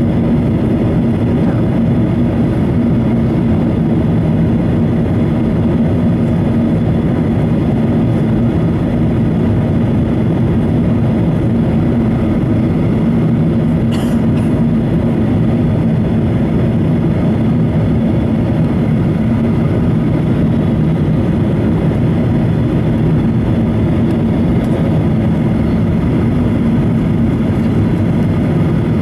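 Steady cabin noise of a Boeing 737-800 heard from a window seat beside the wing during descent: the CFM56-7B turbofans' low drone with a steady hum and rushing airflow. A single brief click comes about halfway through.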